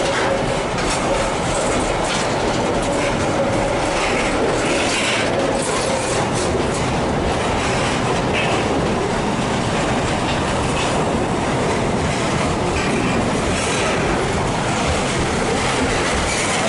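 Empty container freight wagons rolling past close by: a steady rumble of steel wheels on rail with clacking over the rail joints. A faint thin wheel squeal is heard in the first few seconds.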